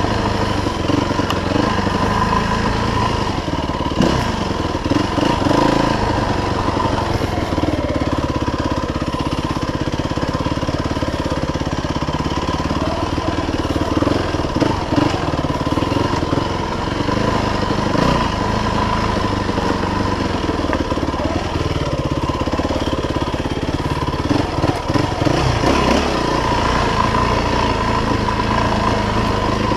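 Dirt bike engine running as the bike is ridden slowly over a rough trail, the revs rising and falling with the throttle, with occasional knocks from the bike over the ground.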